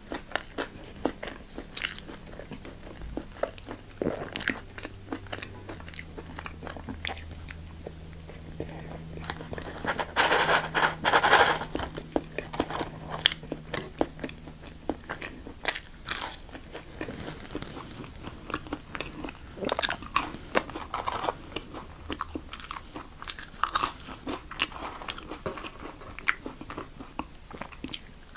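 Close-miked eating: irregular crisp bites and crunching chews of fast food, with a louder, denser flurry of crunching about ten seconds in.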